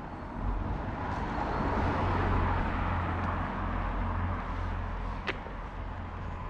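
A car passing along the street: its noise swells about two seconds in and fades slowly, over a steady low rumble. A single sharp click comes a little after five seconds.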